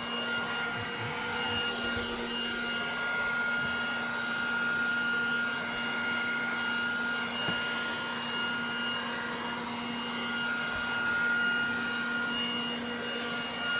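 Vacuboy handheld vacuum cleaner running steadily with a motor whine on its 12-volt setting, at somewhat reduced power, while its wide floor nozzle is worked over a carpet.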